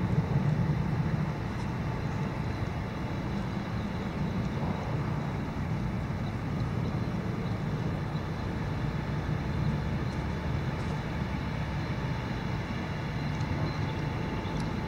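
Steady low rumble of flowing river water over a gravel bed, a little louder in the first second.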